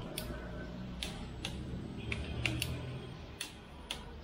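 Click-type torque wrench tightening the connecting-rod cap bolts to about 18 N·m: a handful of short, sharp clicks at uneven spacing.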